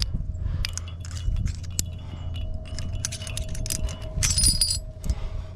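Aluminium carabiners and quickdraws clinking against steel anchor chain and rings as a climber works a two-bolt anchor. Scattered clicks run throughout, with a dense jingle of gear about four seconds in, over a steady low rumble.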